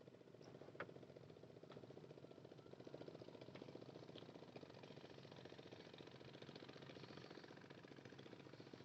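Near silence with a faint, steady engine hum, like a distant idling motor, and a couple of faint clicks near the start.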